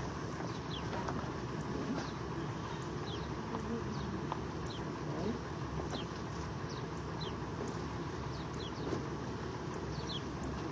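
A small bird repeating a short, high, falling chirp about once a second over a steady low outdoor rumble.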